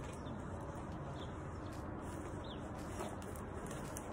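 Soft rustle of a rolled diamond-painting canvas being unrolled on a wooden table, over a steady background hiss, with a few faint short high chirps.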